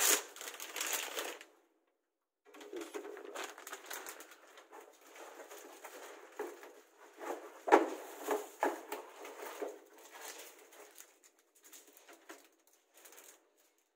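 Irregular handling noise: plastic wrapping crinkling and small knocks and clatter as a DVR unit and its parts are moved about. The sharpest knock comes about eight seconds in, and the sound drops out briefly near two seconds in.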